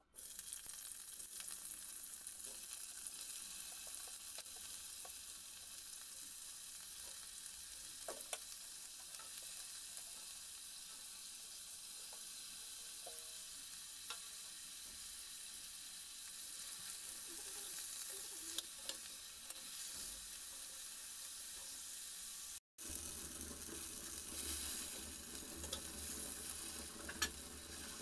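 Vegetables frying in hot oil in a stainless-steel kadai: a steady sizzle, with occasional clicks of a spoon against the metal pan. The sound drops out for an instant about three-quarters of the way through, then comes back fuller.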